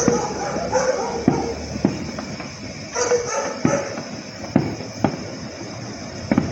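A dog barking in two short bouts, one at the start and one about three seconds in, over sharp firework bangs going off every second or so. The dog is reacting to the fireworks.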